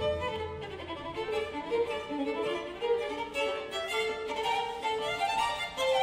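Classical string music, with a violin carrying a melody over soft accompaniment.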